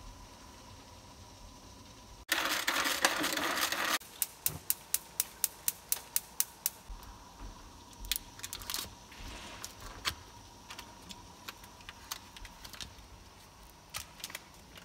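Kitchen food preparation on a counter: a burst of rustling, then a run of quick, even taps, about five a second. After that come paper rustling and scattered knocks as a block of butter is unwrapped and cut with a knife.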